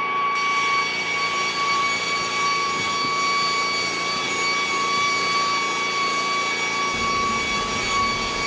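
A steady high-pitched mechanical whine over a hiss, like a motor running at constant speed, with a low rumble coming in near the end.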